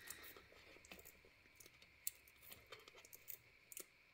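Faint, scattered clicks and small scratches of fingernails picking at sticky tape on a magazine's packaging, with one sharper tick about two seconds in.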